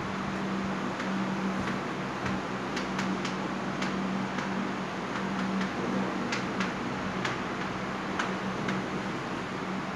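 Chalk clicking against a blackboard as equations are written: irregular sharp ticks, a few close together, over a steady low hum.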